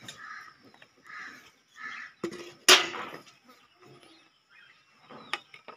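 Harsh bird calls: a few faint short calls, then one loud, sharp call near the middle, with a couple of light clicks near the end.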